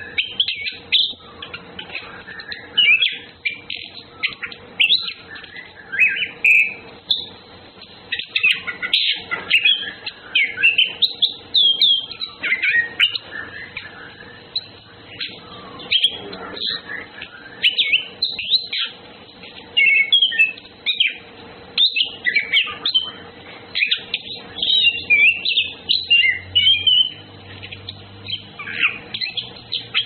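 Orange-headed thrushes (anis kembang) singing: a dense, varied run of short chirps and whistled phrases, rising and falling, with brief pauses between bursts.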